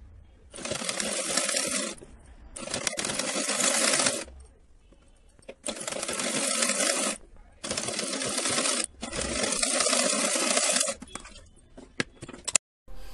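Sewing machine stitching a folded border strip onto a thick quilted mat, in five runs of a second or two with short pauses between them. A few clicks follow near the end.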